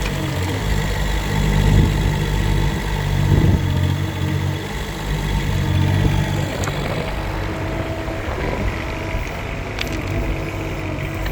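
Rippa R15-3 mini excavator's diesel engine running steadily while digging a trench, swelling under heavier load for a couple of seconds early on, with a few light knocks near the end.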